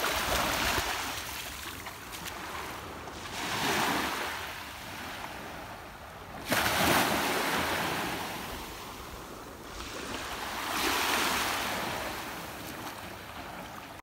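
Small sea waves washing up onto a sandy shore, the rush swelling and fading about every three to four seconds, with a sudden louder wash about six and a half seconds in.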